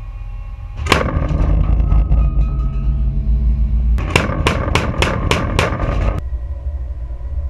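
Bofors 57 mm Mk 2 naval gun firing: a single shot about a second in, then a rapid burst of about seven shots, roughly three to four a second, about four seconds in. A steady low rumble runs underneath.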